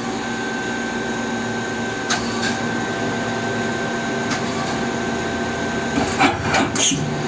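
Okuma CNC lathe running with a steady machine hum and a few held whining tones, light clicks now and then, and a brief cluster of clicks and hiss about six seconds in.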